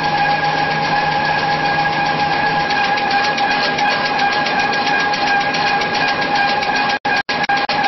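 N-fold hand towel paper converting machine running at speed: a steady whine with a fine rapid clatter of rollers and folding parts. The sound cuts out twice briefly near the end.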